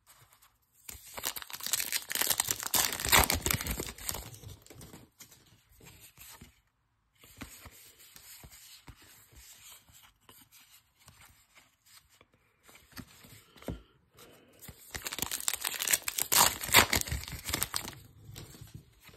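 Wrappers of 2022 Topps Allen & Ginter card packs being torn open and crinkled, in two loud crackly bouts, one about a second in and one near fifteen seconds. Between them come quiet scattered rustles as the cards are handled.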